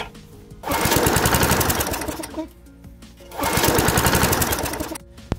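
Small four-stroke push-mower engine running on hydrogen from an electrolysis generator, firing in two rapid surges and dropping away between them, a stumbling run typical of an engine starved of gas flow.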